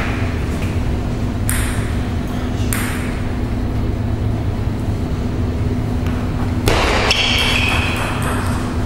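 Table tennis ball struck and bouncing: three separate clicks in the first few seconds as the server readies, then from about two-thirds through a quick rally of ball-on-racket and ball-on-table pings, each with a short ring. A steady low hum of the hall runs underneath.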